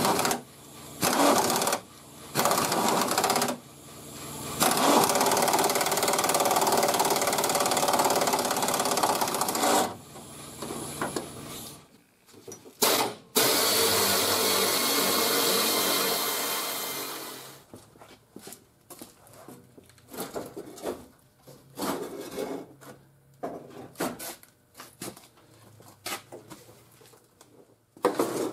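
Pneumatic air ratchet, an old Rodac, spinning fender bolts on a truck. It runs in several short bursts about a second apart, then two longer runs of about five and four seconds. After that there are only faint clicks and tool handling.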